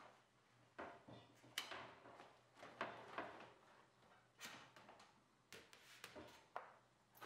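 Faint, irregular scuffs and knocks of a bicycle tyre being worked off the wheel rim by hand, the rubber bead rubbing and slipping over the rim.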